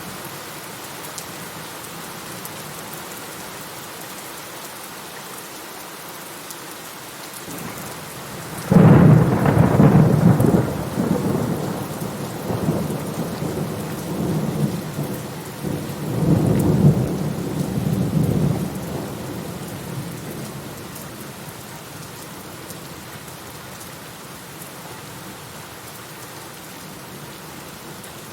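Steady rain falling throughout, with a sudden crack of thunder about a third of the way in that rolls on as rumbling, swells again a few seconds later, and dies away into the rain after about twelve seconds.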